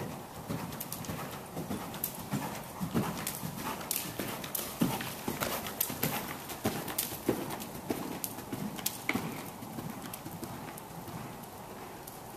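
Hoofbeats of a ridden Westphalian mare moving around an arena with dirt footing, a steady run of thuds that grows louder as the horse passes close and fades as it moves away near the end.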